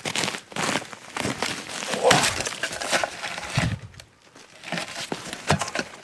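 Footsteps crunching in snow: irregular crunches as someone walks, with short pauses between them.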